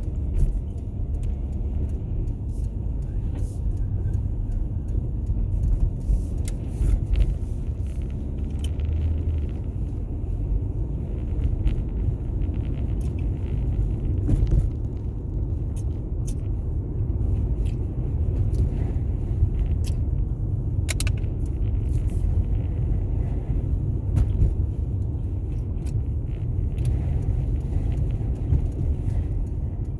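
Steady low rumble of a car on the move, heard from inside the cabin, with scattered light clicks and rattles.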